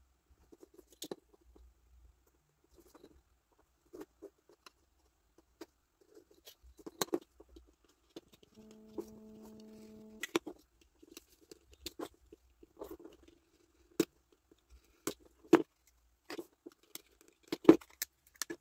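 Pen tip and craft knife scratching and scoring thin balsa wood against a steel ruler: scattered scrapes, taps and sharp clicks, the loudest in the last few seconds. A steady pitched hum sounds for about a second and a half near the middle.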